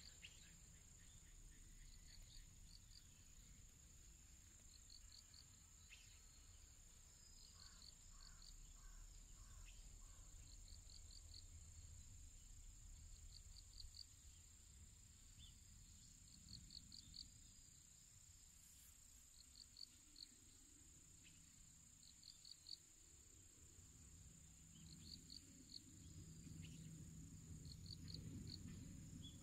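Faint insects singing in the garden: a steady high-pitched drone, with short chirps of a few quick pulses repeating every two or three seconds.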